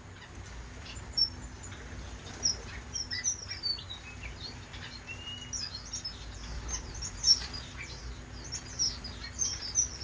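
A flock of small aviary finches chirping and calling: many short, high cheeps and tweets overlapping at random, with a few louder chirps standing out.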